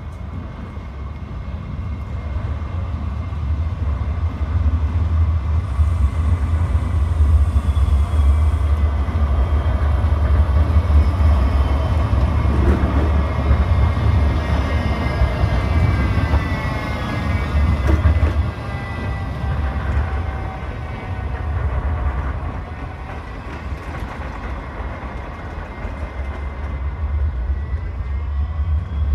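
Low-floor electric tram approaching and passing on wet rails: a low rumble of wheels on track that builds over the first few seconds, with a whine from the drive that bends in pitch as it goes by, then eases off after the pass.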